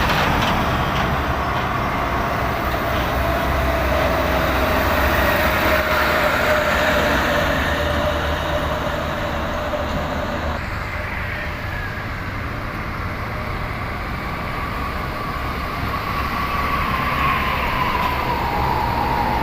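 Heavy diesel truck engine labouring up an incline: a steady low rumble with a thin whine that falls slowly through the first half, then a higher whine that sets in later and dips near the end.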